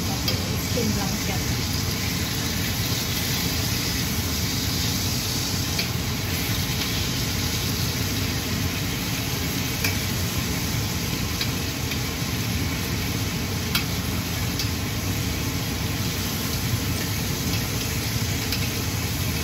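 Pork frying without oil in a stainless steel pan, sizzling steadily while a utensil stirs it, with a few light clicks of metal on the pan. A steady low hum runs underneath.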